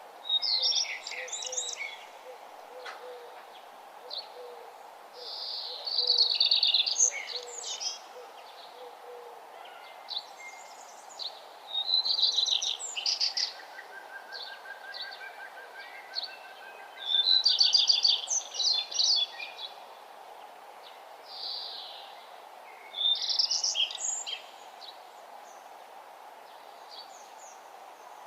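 A songbird singing, repeating a short, rapid, high-pitched song phrase about every five to six seconds over a faint steady background hiss.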